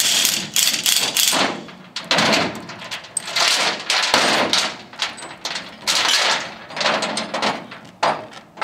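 Heavy steel chain and load-binder hooks rattling and clanking in repeated bursts as the binder is released and unhooked from the chain.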